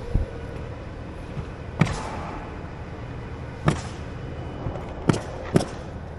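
Roofing work on an asphalt-shingle roof: five sharp knocks at irregular intervals over a steady low rumble.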